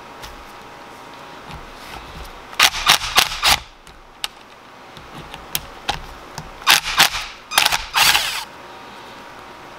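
Hand ratchet clicking in two bursts of rapid clicks, each about a second long, a few seconds apart, as a socket wrench works the valve-cover bolts off the engine's cylinder head.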